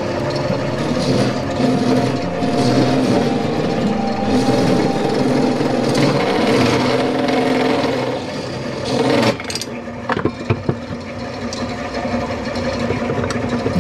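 Old Craftsman wood lathe running with a hum while a turning chisel scrapes and cuts the spinning maple block. About nine seconds in the hum stops, and a few sharp knocks follow.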